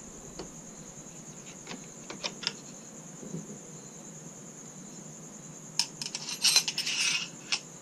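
Steel parts of an SKS rifle clicking and clattering as they are handled during reassembly. There are a few light clicks in the first half and a louder run of metallic rattling near the end, over a steady high-pitched background tone.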